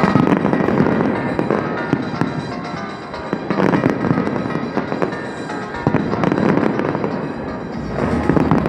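Fireworks bursting in quick succession, many bangs and crackles one over another, with the display's music soundtrack playing underneath.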